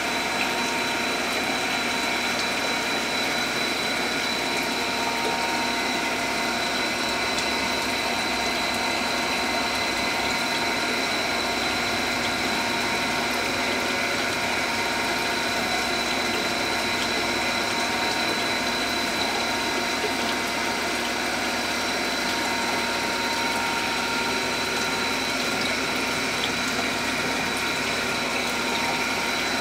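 Aquarium pump and filter running steadily: a constant hum and watery hiss with a faint high whine.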